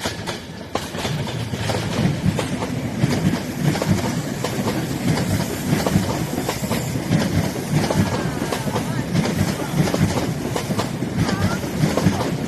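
A train passing close by, its wheels clattering rhythmically over rail joints above a steady rumble; the sound swells over the first second or two, then holds loud.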